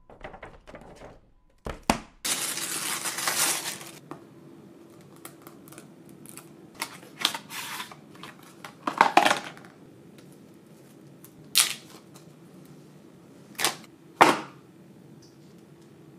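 Smartphone packaging being handled: a clear plastic bag crinkling for a couple of seconds near the start, then scattered rustles, scrapes and taps of the paper-and-cardboard box as it is opened and the phone lifted out, with a faint steady hum underneath.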